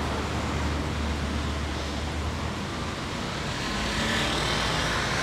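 Street traffic: a vehicle engine running nearby, its low hum dropping away about halfway through, over a steady wash of street noise.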